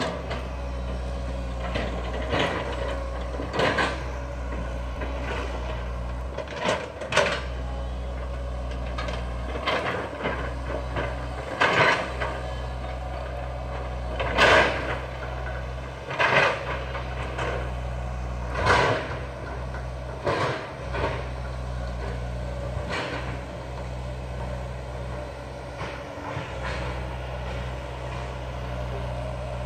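Diesel engines of heavy land-clearing equipment, an excavator among them, running steadily at a distance. Irregular clanks and knocks from the machines at work come every second or two.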